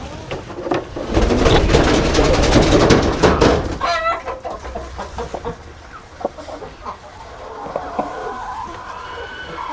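Chickens clucking and squawking, with a loud rustling scuffle lasting a couple of seconds, followed by a wavering squawk and a drawn-out hen's call near the end.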